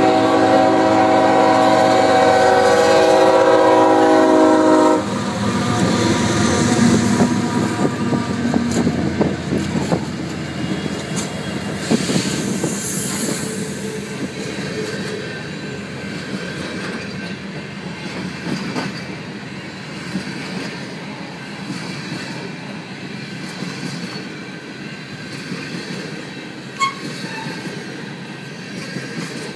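BNSF freight train's locomotive air horn sounding one long blast of about five seconds, cutting off sharply. Then the train rolls past close by, a long string of hopper cars with wheels clattering over the rails and scattered knocks, slowly getting quieter.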